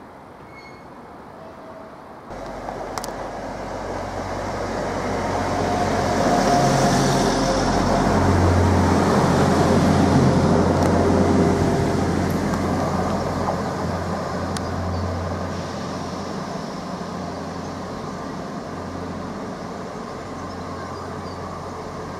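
Transport for Wales Class 175 Coradia diesel multiple unit running through the platform close by. Its diesel engines drone low, grow louder as it draws alongside, then slowly fade.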